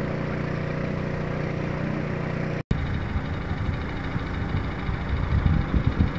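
A vehicle's engine running with a steady, even hum. About two and a half seconds in the sound cuts out for an instant, then gives way to an uneven low rumble of road and wind noise that swells and wavers as the vehicle moves.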